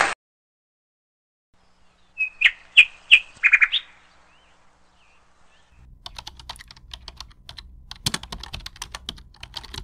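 Intro sound effects for an animated subscribe button: a few short high chirps, then rapid, irregular clicking like typing over a faint low hum.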